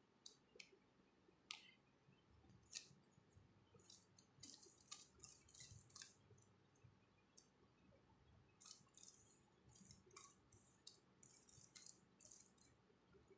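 Faint, irregular clicking and clacking of a 3×3 Rubik's cube's layers being turned in quick runs of moves while a PLL algorithm is performed.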